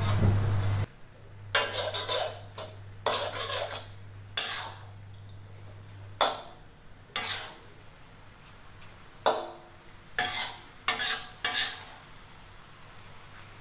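Metal spatula scraping and tossing rice vermicelli around a wok, in irregular clusters of quick scraping strokes with short pauses between. A short hiss sounds right at the start.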